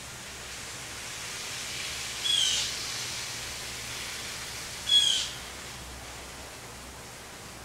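A bird calling twice, about two and a half seconds apart, each call short, over a steady outdoor hiss.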